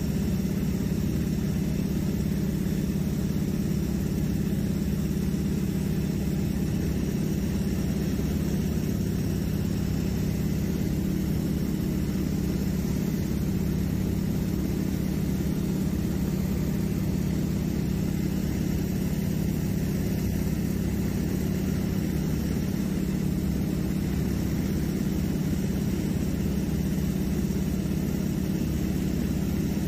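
Seaplane's propeller engine droning steadily in cruise, heard from inside the cabin.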